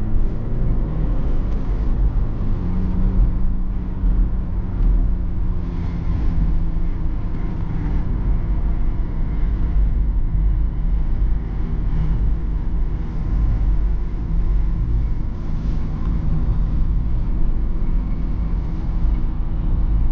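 BMW E46 320d's 2.0-litre four-cylinder diesel engine running steadily under way, heard inside the cabin with a heavy low road and tyre rumble. The engine drone dips slightly in pitch near the start, then holds steady.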